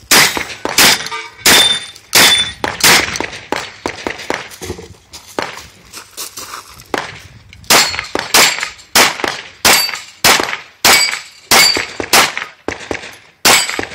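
A string of gunshots: several shotgun blasts fired at steel plates in the first few seconds, then after a short break a steady run of pistol shots about two a second. Some hits are followed by the brief ring of struck steel targets.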